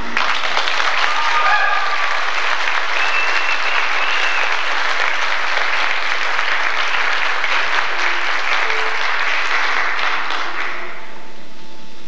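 Audience applauding after a song ends, with a few whistles in the first four seconds. The applause dies away about eleven seconds in.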